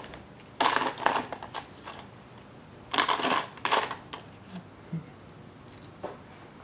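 Metal tools and small engine parts clinking and clattering on a workbench: two short bursts, about half a second in and about three seconds in, then a few lighter clicks.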